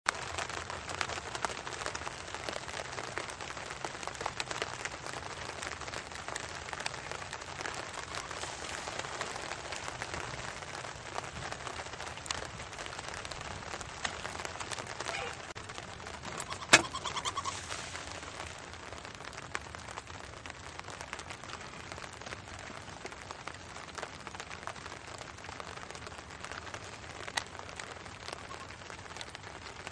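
Steady patter of light rain, a soft hiss full of tiny ticks. About 17 seconds in there is one sharp knock, followed by a short call.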